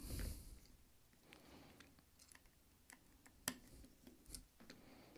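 Faint, scattered light clicks and taps of fingers handling the plastic and metal parts of a partly disassembled Square Terminal card reader. The sharpest click comes about three and a half seconds in.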